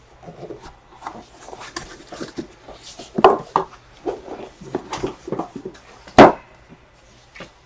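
Cardboard card boxes and their case being handled as the case is opened: scattered light knocks, taps and rubbing, with one sharp knock about six seconds in.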